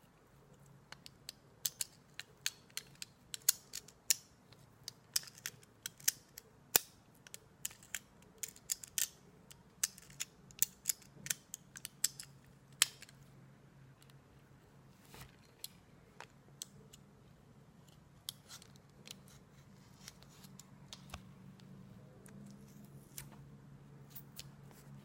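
Close-miked sticky clicks and smacks from aloe vera gel being handled and eaten, many quick sharp clicks packed together for about the first half, then fewer and farther apart.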